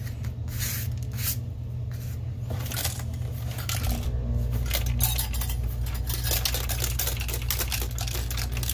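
Loose parts rattling and clicking inside a BenQ MH741 DLP projector as it is lifted and tilted, the clatter growing denser about halfway through: a bad sound, pointing to something broken loose inside.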